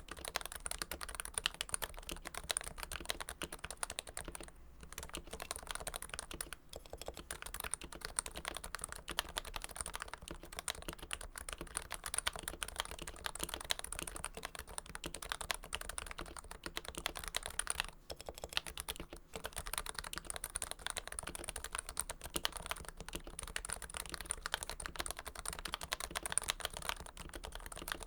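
Fast, continuous typing on a Realforce keyboard with Topre electro-capacitive switches that have been lubed, fitted with a Realforce Hipro plate in a first-generation Realforce TKL case. The keys give a dense run of soft thocks, with a few brief pauses.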